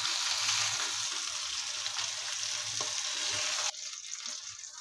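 Fish steaks shallow-frying in a little oil on a flat iron tawa: a steady sizzle while a steel spatula lifts the pieces out. The sizzle cuts off suddenly about three and a half seconds in, leaving only faint clicks.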